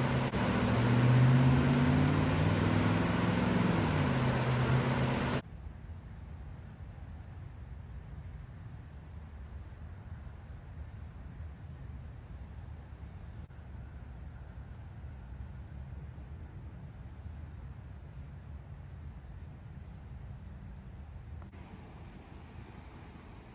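Swift floodwater rushing over rocks as a loud steady wash, with a low drone rising and falling under it. Then, after a sudden cut, insects trilling steadily at a high pitch over a faint low rumble.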